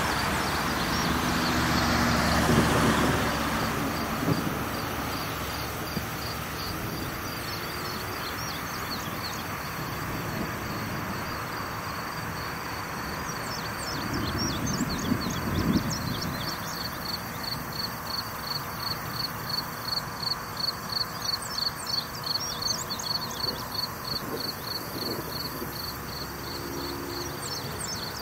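Night insects chirping in a steady, high-pitched rhythm of about two pulses a second, strongest in the second half. A deep rumble swells during the first few seconds, and a shorter one comes about halfway through.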